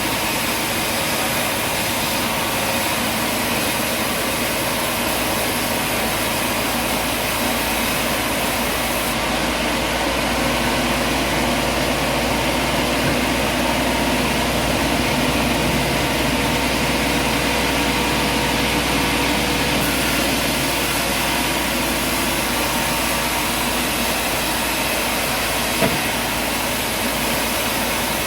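Steady engine or machinery noise running continuously at an even level, with one short click near the end.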